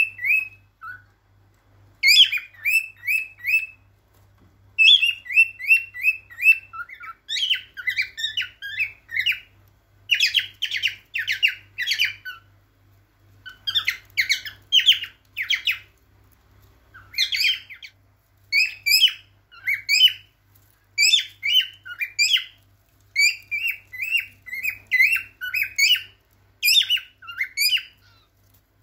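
Male cockatiel singing its courtship song: phrases of quick, repeated whistled chirps, several notes a second, broken by short pauses.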